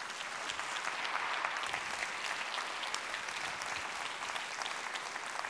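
A large audience applauding, a dense, steady clapping.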